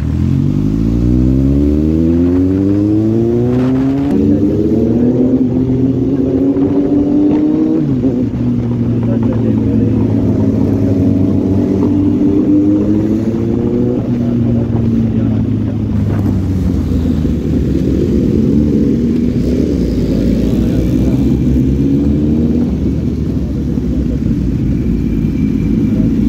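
Kawasaki Z800 inline-four motorcycle engine accelerating hard through the gears. Its pitch climbs, drops at a shift about four seconds in and climbs again, then settles into a cruise that rises and falls gently.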